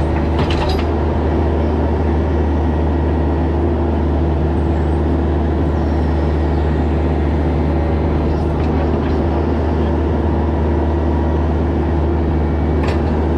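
Bobcat E26 mini excavator's diesel engine running steadily under load as it digs, heard from the operator's cab, with two brief knocks, about half a second in and near the end.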